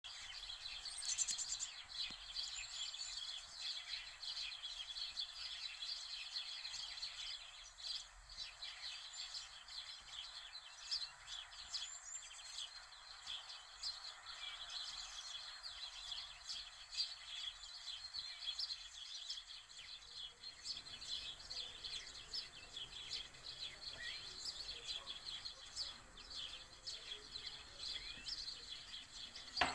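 Small birds chirping and singing continuously over a faint steady hiss, with one sharp click near the end.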